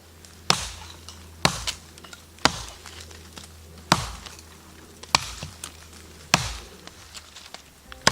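Wood being chopped: six sharp strikes, roughly one a second, with a few lighter knocks between them.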